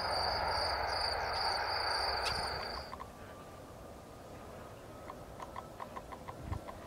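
Airbus A330 jet engines rushing as the airliner rolls along the runway, with a steady high insect buzz over it. About three seconds in the sound cuts off abruptly to quieter outdoor ambience with faint, regularly repeating chirps.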